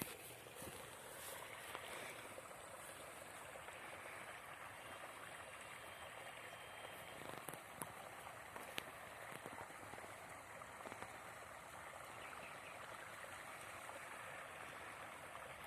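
Faint, steady rush of flowing water, such as a stream, with a few faint clicks here and there.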